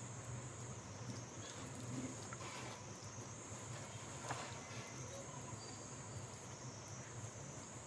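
Steady high-pitched chirring like insects or crickets, dipping briefly every couple of seconds, over a low steady hum, with a few faint clicks.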